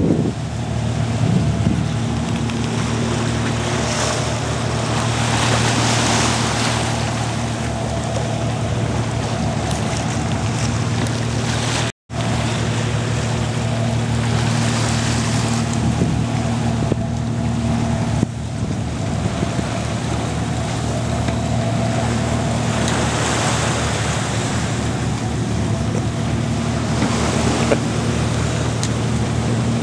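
Steady low drone of a schooner's engine under way, mixed with wind on the microphone and water rushing past the hull, which swells louder every few seconds.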